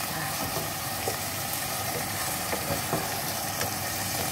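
Chicken livers cooking in soy sauce and vinegar in a nonstick pot, giving a steady hiss, while a wooden spatula stirs them with a few light taps against the pot.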